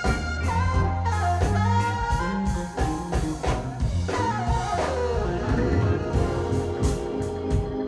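Live band playing a funk-jazz improvisation: electric bass and drum kit under a lead melodic line that bends in pitch, sliding down about halfway through.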